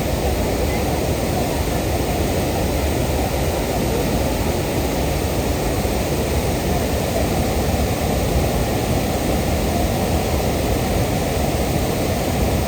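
Waterfall (Nyangombe Falls): a steady rush of falling water, heavy in the low end, with no breaks.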